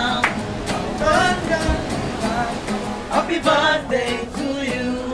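Music with singing voices over a steady accompaniment.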